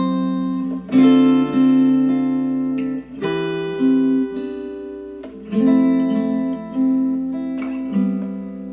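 Acoustic guitar music, strummed chords struck every second or two and left ringing, played back through Wharfedale Diamond 12.2 bookshelf speakers driven by a Yamaha A-S301 amplifier.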